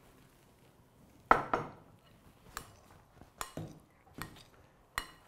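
Metal spoon clinking against a glass mixing bowl while tossing boiled sweet corn kernels in cornstarch. There is a series of irregular clinks that begins about a second in, and the first is the loudest.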